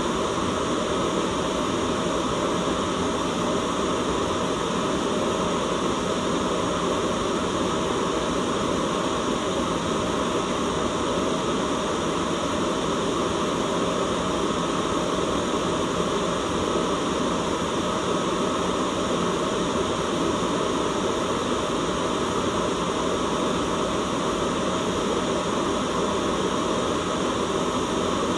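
Steady white noise, an even unchanging hiss, fullest in the lower and middle range.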